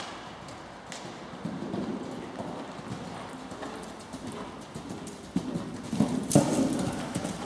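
Horse hoofbeats on the sand footing of an indoor arena as a horse canters, with a louder cluster of thuds about six seconds in.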